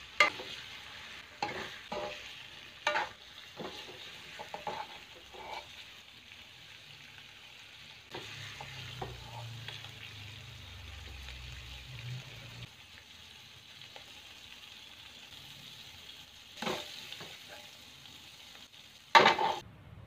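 Tempe frying in red chili sambal in an aluminium wok, sizzling steadily while a metal spoon stirs and scrapes through it with scattered clinks against the pan. A loud clank comes near the end.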